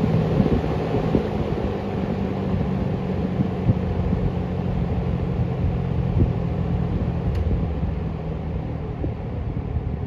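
1960s Sears-Kenmore three-speed box fan running, its fireball motor giving a steady low hum under the rush of air from the blades, growing slightly quieter near the end.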